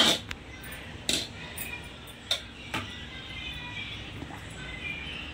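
Several sharp knocks of kitchen utensils, like a spoon against a pot or bowl, while the mango custard is served out: one at the start, one about a second in, and two close together a little over two seconds in. Faint voices run underneath.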